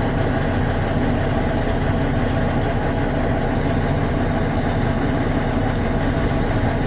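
2007 Kenworth T600's diesel engine idling steadily.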